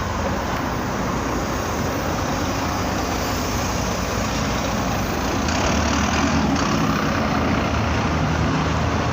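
Street traffic noise with a bus engine running close by, growing a little louder about five and a half seconds in.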